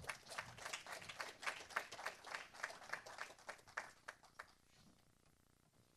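A small group of people applauding with light clapping that thins out and stops about four and a half seconds in.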